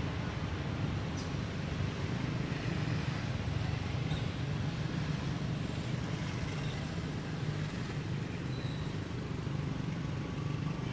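Steady, low road-traffic rumble of cars and motorbikes.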